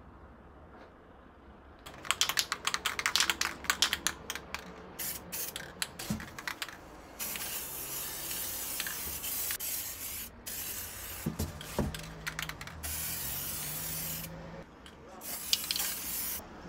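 Aerosol can of silver lacquer spray paint shaken for a few seconds, its mixing ball rattling in rapid clicks. It is then sprayed in several long, steady hissing bursts with brief pauses between them.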